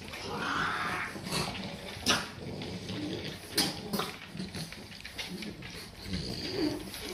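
French bulldog yawning with a drawn-out whine in the first second, followed by quieter dog noises and a few sharp clicks.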